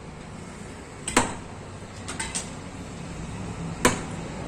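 Hammer striking a nail used as a punch on an angle grinder's bearing seat, dimpling it so the bearing sits tight without play: two sharp strikes about a second in and near the end, with a few lighter taps around the middle.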